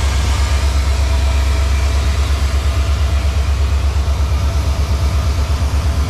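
Diesel freight locomotives running past at close range: a loud, low engine rumble that pulses quickly and evenly, with the first covered hopper cars rolling by near the end.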